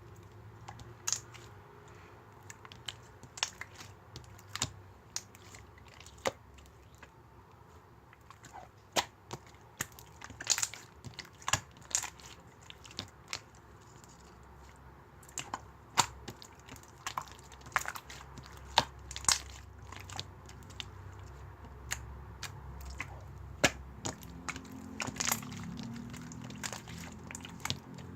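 Slime being pressed and stretched by hand, giving irregular sharp pops and clicks, some several a second, some alone.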